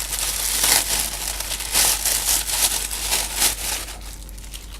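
Plastic packaging crinkling and rustling as it is unwrapped by hand, in a run of irregular rustles that die down near the end.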